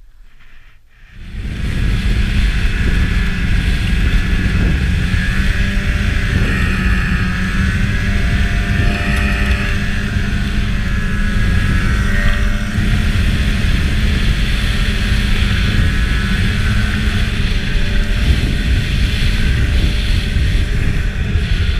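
Two-stroke Rotax 600 twin of a 2003 Ski-Doo MX Z 600 snowmobile running steadily while riding, its engine note rising and falling slightly with the throttle. It comes in abruptly about a second in.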